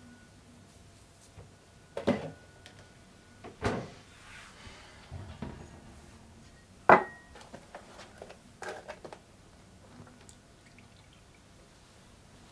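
Kitchen handling sounds: a few separate sharp knocks and clacks of a carton and glass being picked up and set down on the counter. The loudest comes about seven seconds in, with a quick cluster of smaller clicks soon after.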